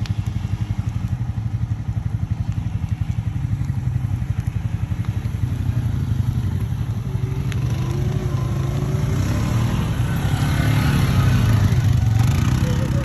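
Engine of a small off-road vehicle running steadily, getting louder from about ten seconds in and easing again near the end.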